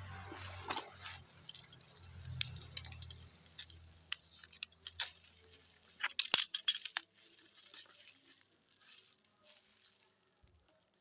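A parcel holding a broken glass jar being handled and opened: packaging rustles, with scattered clicks and a quick run of sharp clinks about six seconds in.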